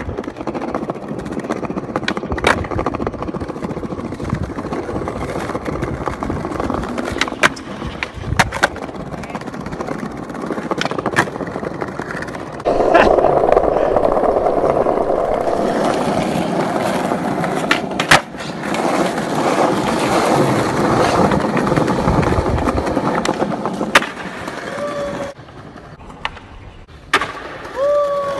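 Skateboard wheels rolling on concrete pavement, with several sharp clacks of the board popping and landing.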